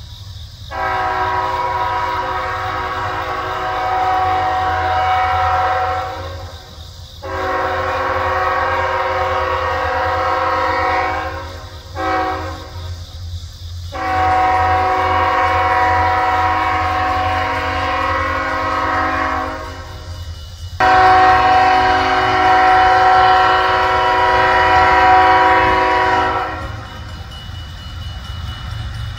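Diesel freight locomotive's air horn sounding the grade-crossing signal as the train approaches: two long blasts, a short one, then a long held blast that grows louder near its end, several notes sounding together. A steady low rumble runs underneath.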